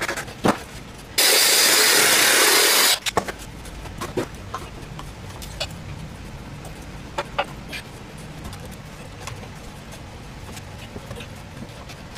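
Light scattered knocks and clicks of a PVC drain tee being handled and pushed into a banded rubber pipe coupling, over a low steady hum. Near the start, a loud, even hiss lasts under two seconds.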